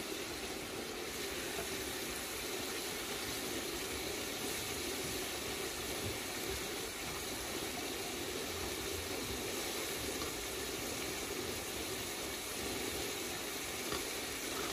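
Julienned carrots and raisins sizzling in hot oil in a large metal pot, a steady hiss.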